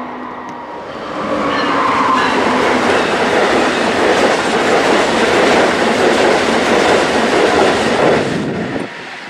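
Amtrak Northeast Regional passenger train running past at speed: a loud, steady rush of steel wheels on rail. It swells about a second in and cuts off suddenly near the end.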